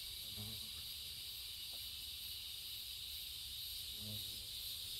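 Steady evening insect chorus, a continuous high hiss, with two soft low clucks from the chickens about half a second and about four seconds in.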